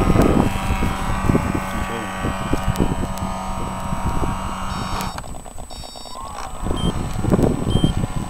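Push boat's motor running with a steady whine for about five seconds, then dropping away. Short high beeps follow, repeating about once a second like a reversing warning.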